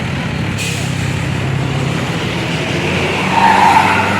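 Tour bus running along the road with a steady low engine rumble, a short hiss about half a second in, and a louder swell of road noise near the end.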